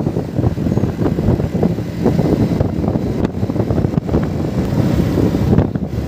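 Yamaha MT-15's single-cylinder engine running at cruising speed, mixed with wind rushing over the microphone. It eases off near the end as the bike slows.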